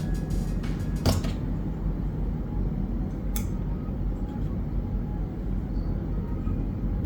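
Light handling clicks and taps from working on an opened laptop, with one sharp click about a second in and another about three seconds later, over a steady low rumble.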